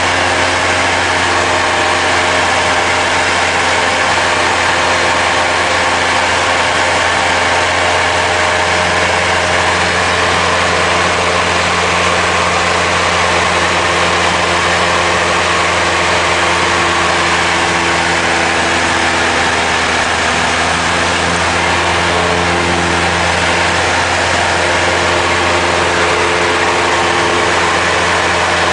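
Cessna light aircraft's piston engine and propeller running steadily in cruise flight: a loud, even drone with a constant low hum and steady tones over a rushing noise.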